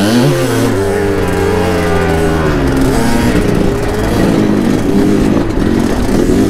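Two-stroke dirt bike engines ridden at low speed. The revs rise and drop right at the start, hold fairly steady for a couple of seconds, then go up and down gently with the throttle.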